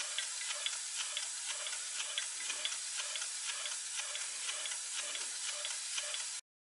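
Model twin-cylinder oscillating steam engine running: a steady hiss with a quick, even ticking rhythm.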